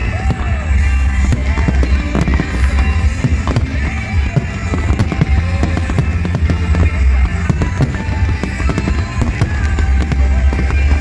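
Fireworks going off, with many sharp bangs and crackles, over loud music with a strong, steady bass.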